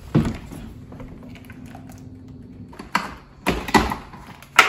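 Handling a Samsung French-door refrigerator's door and its flipper assembly: a few sharp plastic knocks and clicks, the loudest near the end.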